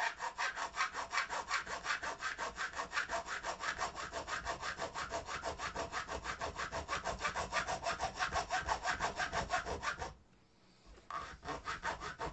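Fine razor saw cutting through a metal model railway rail in rapid, even back-and-forth strokes. The sawing stops for about a second near the end, then starts again.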